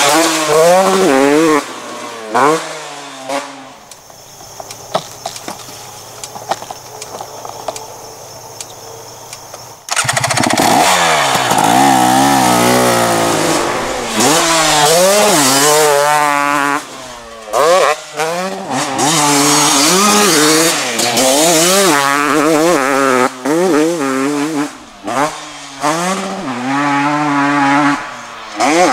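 KTM 250 SX single-cylinder two-stroke motocross bike being ridden hard, its engine pitch repeatedly climbing and dropping as the throttle opens and shuts through gear changes. For a few seconds after the start the bike fades to faint and distant, then it comes back loud and close.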